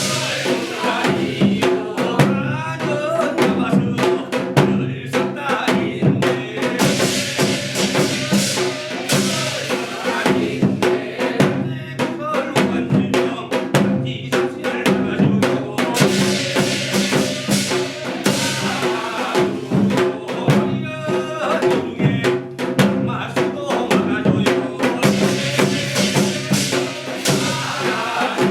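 Korean shamanic gut music in a modern arrangement, played by an ensemble: dense, driving drum and percussion strikes over sustained low held tones, going on without a break.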